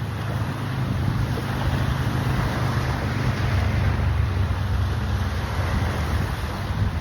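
Wind buffeting the microphone as a steady low rumble, over the even hiss of surf.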